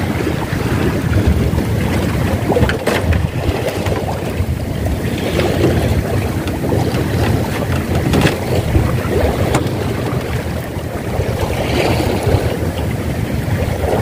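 Wind buffeting the microphone over the open sea, with waves lapping and a few faint clicks.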